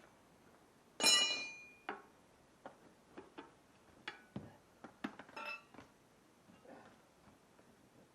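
Metal clanking and clinking, as of hand tools on a tractor wheel rim. One loud ringing clank about a second in is followed by lighter taps and clinks, with another ringing clink a little past the middle.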